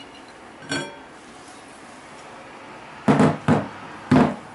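Stainless steel lid of a tabletop high-speed mill grinder being handled and opened: a short metallic ring about a second in, then three loud knocks close together near the end.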